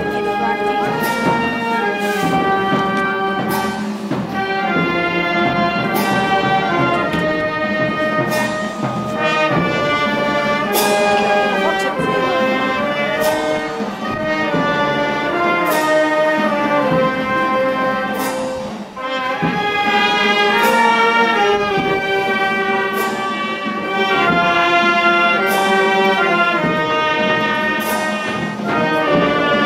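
Brass band, with tuba or sousaphone, playing a slow funeral march of held, sustained notes. A drum and cymbal stroke falls about every two and a half seconds.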